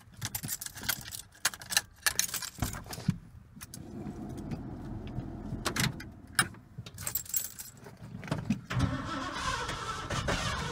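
Keys rattling in the ignition, then the 1985 Ford F-150's 302 V8 cranking over on the starter on a cold day and starting up near the end.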